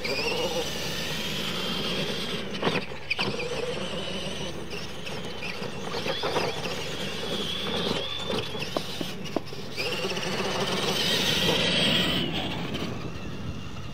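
Electric motors of radio-controlled monster trucks whining as they rev up and down, with tyres scrabbling on dirt and a few sharp knocks from the trucks hitting ramps and ground.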